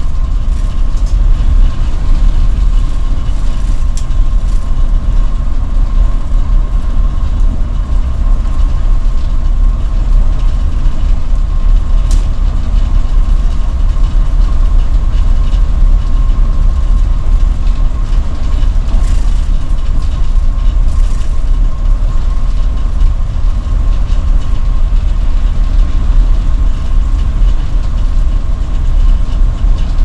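2017 Mercedes-Benz Citaro city bus driving steadily, its 7.7-litre six-cylinder diesel engine and tyres making a loud, even low rumble with a thin steady whine above it.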